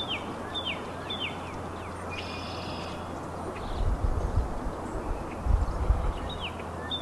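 Northern cardinal singing: clear down-slurred whistles repeated about twice a second, one run in the first second and another starting near the end. A short buzzy trill from another bird comes between, and a low rumble rises in the second half.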